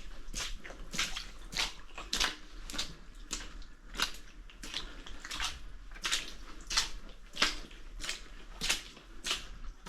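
Footsteps at a steady walking pace, about one and a half steps a second, each a short scuffing strike.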